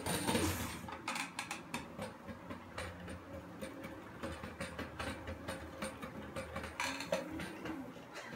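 Hoverboard kart with brushless hub motors on 1000-watt speed controllers, driving over a tiled floor: a low motor whine that bends up and down in pitch as it speeds up and turns, over a steady run of rapid clicks and rattles from the rolling kart.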